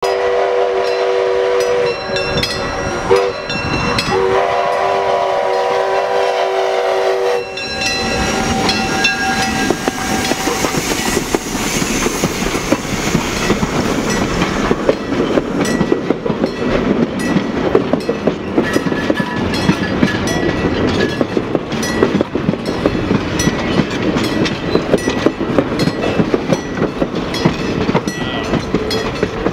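Steam locomotive No. 3 "Robert Dollar" sounding its whistle for a grade crossing in several blasts, the last long one cutting off about seven and a half seconds in. Its passenger coaches then roll past close by, with wheels clacking over the rail joints.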